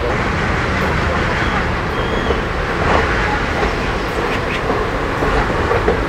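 Diesel-hauled passenger train running, heard from an open window in one of its coaches: a steady rumble of wheels on rail with the chugging of the ALCO diesel locomotive at the head of the train.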